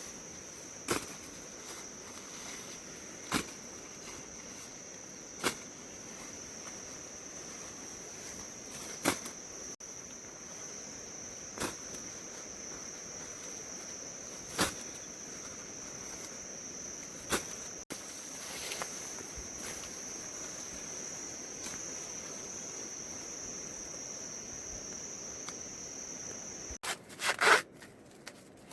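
Insects chirring steadily in one high, even note, with sharp single clicks every two to three seconds. Near the end the chirring stops and there is a short burst of louder rustling noise.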